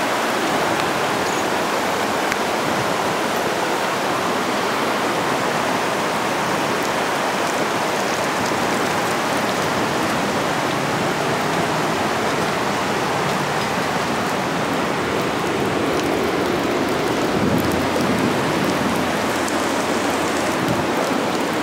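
Floodwater rushing steadily through an overflowing creek in flood.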